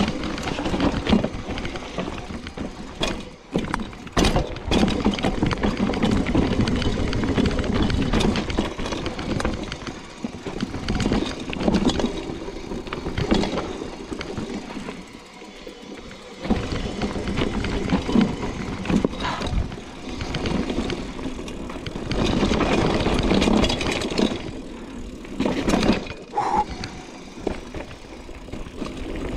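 Mountain bike riding down a dirt downhill trail: tyres rolling over ground and stones, with the bike rattling and knocking sharply over bumps as the noise swells and eases.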